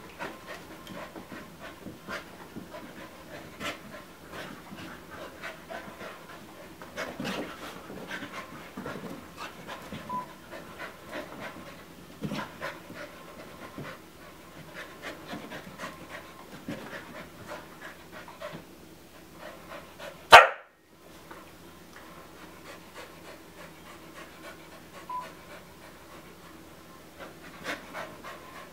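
Several dogs panting hard from chasing a laser dot, with quick, rapid breaths overlapping throughout. One sudden loud sound cuts in about two-thirds of the way through.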